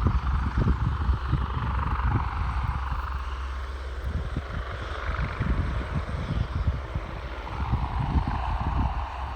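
Helicopter turbine and rotor noise from across the airfield: a steady rushing hiss that dips and then swells again, over a low, gusty rumble.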